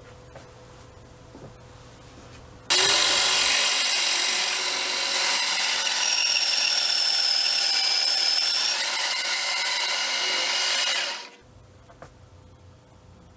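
A power tool running loudly with a steady high whine; it starts abruptly and fades out after about eight and a half seconds.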